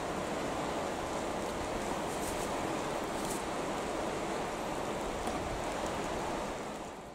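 Steady rush of a fast-flowing river, easing off slightly near the end.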